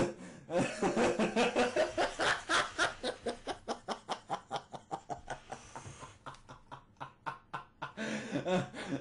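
A person laughing hard in one long fit: rapid bursts of about five a second that fade over several seconds, then pick up again near the end.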